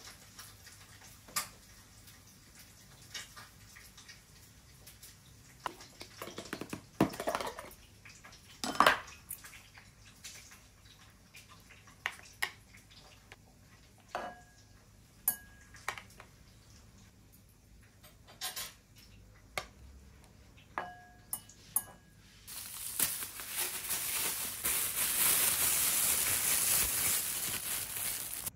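Metal chopsticks and plastic containers clicking and clinking against a ceramic bowl as food is moved, with a couple of brief ringing clinks. Near the end a thin plastic bag crinkles loudly and continuously as it is handled.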